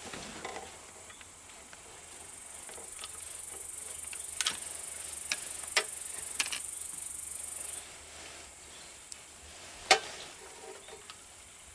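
Scattered metal clinks and taps of a socket wrench and extension being worked on the bolts of a small engine, the sharpest about ten seconds in. Under them runs a steady high hiss that stops about eight seconds in.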